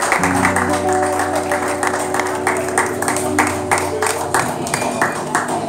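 Live band music: electric guitars holding sustained notes over a steady beat of percussion hits. The music thins out near the end.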